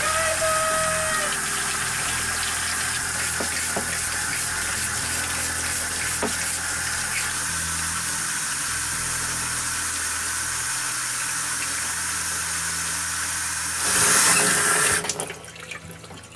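Faucet water running into a utility sink and splashing over a front-loading washer's drain pump filter as it is scrubbed clean with a toothbrush. The flow gets louder for about a second near the end, then stops.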